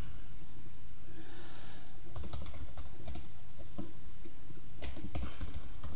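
Computer keyboard typing: irregular single keystrokes, mostly in the second half, over a steady low electrical hum.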